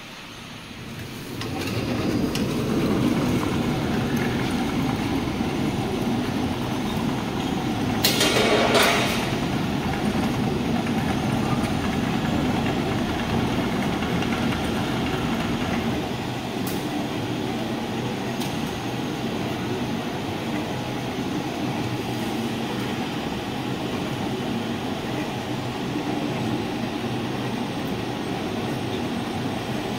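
Turntable pallet stretch wrapper starting up and running, its turntable and film carriage making a steady mechanical rumble and hum that builds over the first two seconds. A brief, louder burst of noise comes about eight seconds in.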